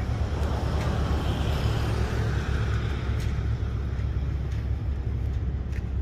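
Steady outdoor background noise: a low rumble with a broad hiss over it, swelling slightly a second or two in.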